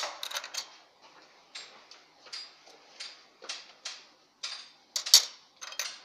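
Small stamped steel brackets clicking and clinking against each other as they are handled, a series of light sharp clicks at uneven intervals, with a louder clack right at the start and another about five seconds in.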